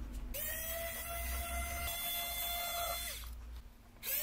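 Electric precision screwdriver's small motor whining steadily as it backs out a MacBook Pro bottom-case screw. It stops about three seconds in and starts again just before the end.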